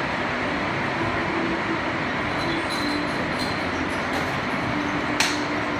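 Heavy rain pouring steadily, with scattered sharper drops ticking and one sharp tap a little after five seconds in.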